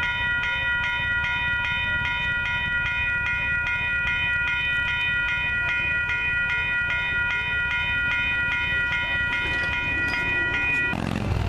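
Railroad grade-crossing warning bell ringing at about two strokes a second over a low rumble, then cutting off suddenly about eleven seconds in as the crossing gates rise, the sign that the train has cleared the crossing.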